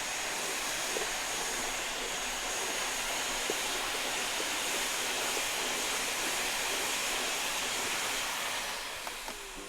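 Vacuum cleaner running steadily: an even, hissing rush with a faint high whine, easing a little in level near the end.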